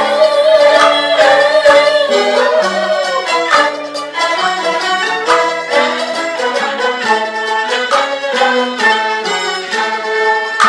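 Peking opera aria with jinghu fiddle accompaniment. A held, wavering sung note gives way after about three seconds to the jinghu playing on alone in quick stepped notes.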